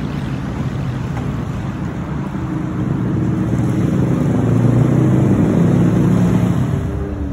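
Road traffic: a motor vehicle's engine grows louder from about three seconds in, over a steady road and traffic noise, then eases off near the end.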